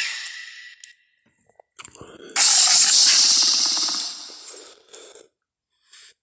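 Velociraptor sound effect: a loud hiss that starts suddenly about two and a half seconds in, with a low rattling growl beneath it, then fades away. At the very start the tail of a falling screech dies out.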